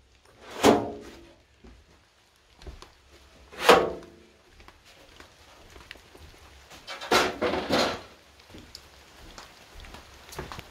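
Wooden creaks and knocks as a wooden aircraft wing is moved on its stand: four short, loud creaks with falling pitch, one about a second in, one near four seconds and a pair near seven to eight seconds, with quieter clatter between.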